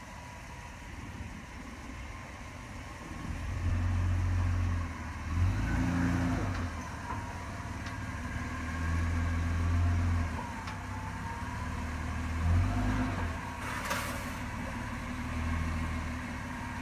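Toyota Land Cruiser 80-series engine crawling over boulders, swelling in about five short bursts of throttle with idle in between. A brief harsh scrape comes near the end.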